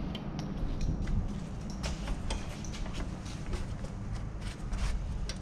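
Irregular light clicks and taps of hands working on parts in a car's engine bay, over a steady low rumble.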